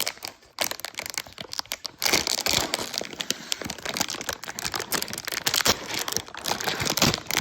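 Plastic packaging crinkling and rustling in the hands as a Labubu blind-box package is opened, a dense irregular crackle that begins about half a second in.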